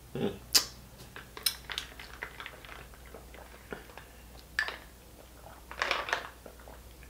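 Mouth sounds of fingers being licked clean, wet smacks and small clicks in the first few seconds, then drinking from a plastic sports water bottle, with a few louder sips and gulps a little past the middle.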